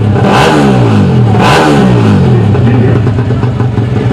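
Four-stroke Yamaha Jupiter MX-based drag bike, staged at the start line, revved hard in two sharp blips, its pitch shooting up and falling back, then dropping to a steady fast idle for the last second.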